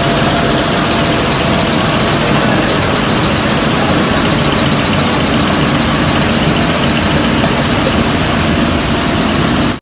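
Rice mill processing machinery running: a loud, steady, dense mechanical din.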